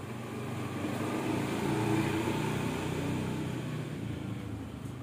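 A motor vehicle passing, swelling to its loudest about two seconds in and then fading.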